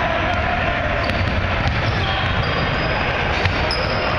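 Basketball bouncing a few times on a hardwood gym floor, each bounce a sharp smack, over the steady din of a busy gym.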